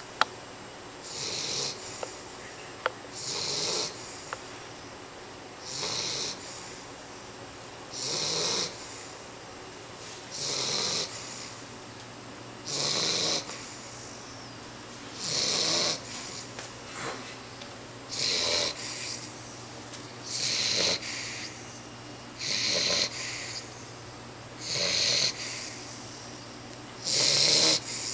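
Dog snoring in its sleep: a steady series of breathy, hissing snores, one about every two to two and a half seconds.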